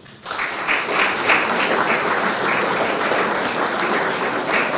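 Audience applauding, breaking out about a quarter second in and holding steady.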